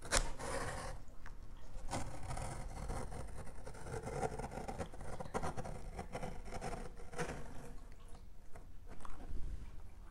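Box cutter slicing through packing tape and cardboard on a shipping box, with a sharp click near the start followed by uneven stretches of scraping as the blade is drawn along the seams.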